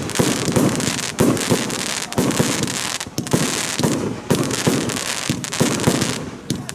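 Evolution Feuerwerk 'Snowstorm' 30 mm firework battery firing shot after shot in rapid succession: sharp launch thumps, two or three a second, over a steady crackling hiss.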